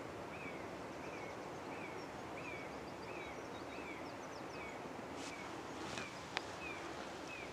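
Woodland background with a bird repeating one short call, roughly every two-thirds of a second, over a steady low outdoor hiss. Fainter high chirps come in briefly, and a single sharp click sounds a little after six seconds in.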